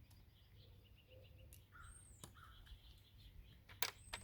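Quiet outdoor background with a distant crow cawing twice and a small bird's high, falling chirp. A few light, sharp clicks are heard, the loudest near the end.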